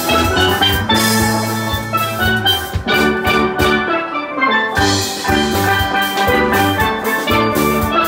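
Steel pan band playing a lively tune, several steel drums struck with mallets in a quick rhythm, backed by a bass line and a drum kit.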